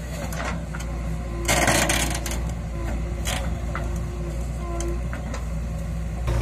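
JCB 3DX backhoe loader digging with its rear backhoe bucket, its diesel engine running steadily. A short, loud rush of noise comes about a second and a half in, with a few clicks and knocks after it.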